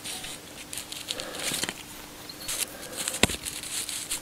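Small metal and plastic parts of a distributor vacuum advance unit handled on a workbench: light scattered clicks and rustling, with one sharp click about three seconds in.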